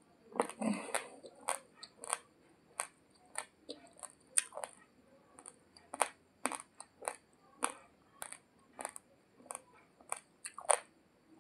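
Raw basmati rice grains being crunched between the teeth: a running series of sharp, crisp cracks, about two a second, with a brief rustle near the start.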